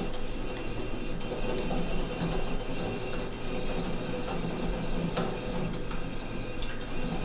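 Steady electrical hum of the running OFDA fibre-analyser setup and its monitor, with a couple of faint light ticks as fingers work wool snippets on the glass slide.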